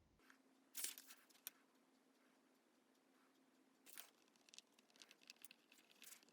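Near silence with a few faint clicks and rustles, and a faint steady hum during the first half.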